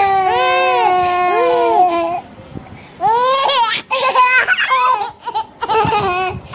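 A young man's loud, drawn-out sung wail with repeated upward swoops in pitch, which breaks off about two seconds in. After a brief pause it gives way to laughing and shouting in short bursts.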